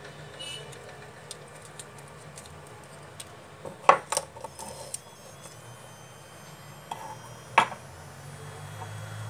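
Small plastic phone parts clicking and knocking against a wooden workbench as they are handled and set down: a few sharp taps about four seconds in and another one later, with lighter ticks in between, over a low steady hum.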